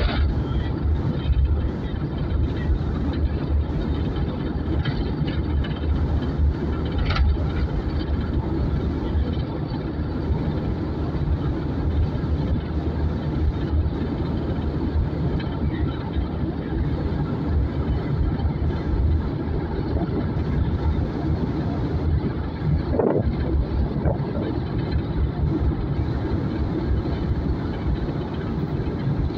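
Steady in-cabin noise of a minibus taxi cruising on the highway: a low engine drone mixed with tyre and wind noise.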